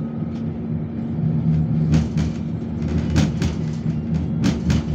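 Alsthom TFS tram running, heard from inside the passenger car: a steady low hum and rumble, with pairs of sharp clacks from the wheels on the track about 2, 3 and 4.5 seconds in.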